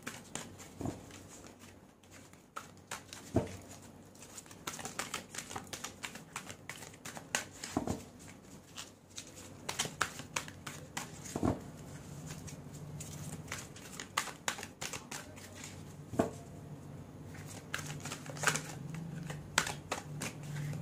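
A deck of tarot cards being shuffled by hand: a long run of irregular short clicks and slaps of card against card.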